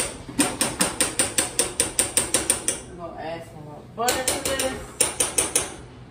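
Hand-turned spice grinder clicking rapidly over a pan, about six or seven clicks a second, in two bursts of roughly two and a half seconds and a second and a half.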